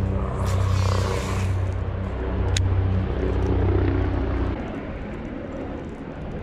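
Wind buffeting the microphone: a loud low rumble that eases off about four and a half seconds in, with a single sharp click near the middle.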